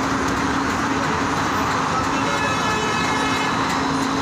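Busy city street traffic: a steady din of engines and road noise, with a faint held tone sounding for about a second and a half from about two seconds in.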